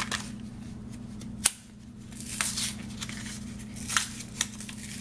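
Plastic packaging of toy joke spiders being handled and opened: crinkling rustles, one sharp click about a second and a half in, and a couple of lighter clicks near the end, over a steady low hum.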